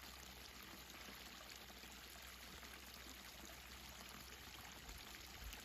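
Faint, steady babbling of a stream of running water.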